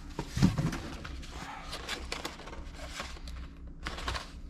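Rustling and clicking of a small boxed knife and its packaging being handled, with one louder knock about half a second in.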